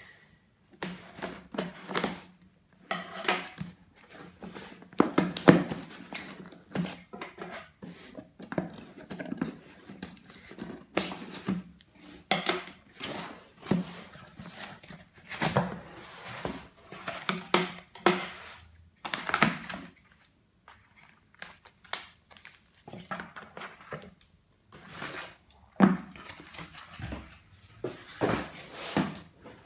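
Cardboard shipping box being cut open with scissors and unpacked by hand: irregular scraping, tearing and rustling of cardboard and packing tape, with knocks as the scissors and boxes are set down on a wooden tabletop.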